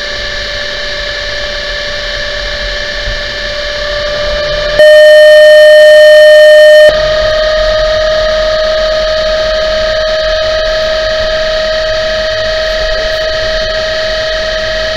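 Recorded differential whine played back: a steady high whine near 609 Hz, with higher tones, over road noise. The presenter believes it to be the ring gear's tooth-contact frequency. About five seconds in, it gives way for about two seconds to a much louder, pure 609 Hz sine tone from a function generator, and then the whine resumes.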